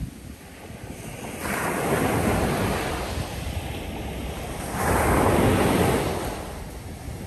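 Ocean surf breaking on a beach: one wave washes in about a second and a half in, and a louder one about five seconds in, fading away after it.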